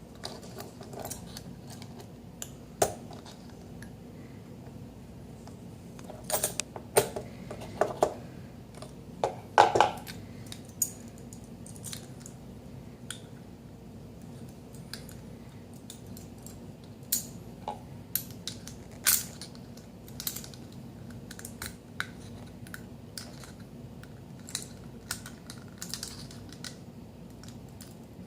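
Irregular metal clicks and taps as a catch ring is worked by hand into the groove of a Caravel lever espresso machine's piston assembly, a fiddly, repeated struggle to seat it. Clusters of sharper clicks come about a third of the way in and again past halfway, over a steady low hum.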